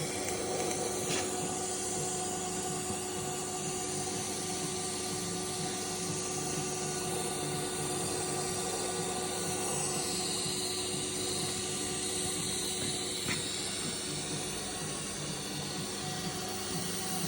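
TIG welding arc on a steel pipe, a steady hiss with a faint steady tone under it, and two short clicks along the way.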